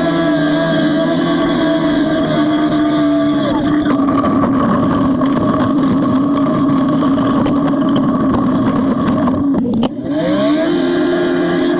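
John Deere backhoe's diesel engine running at high revs, the revs dropping about a third of the way through into a rougher, lower running and climbing back up near the end.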